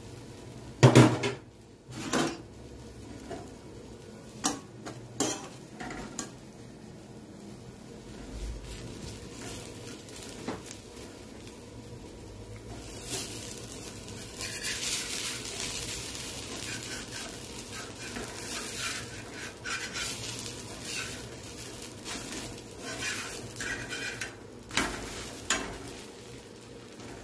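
A metal spatula knocks and scrapes on a dosa tawa while the dosa sizzles, as potato masala is spread over it and the dosa is folded. There are a few sharp clinks at the start, a hissing stretch of sizzling and scraping from about halfway, and more clinks near the end.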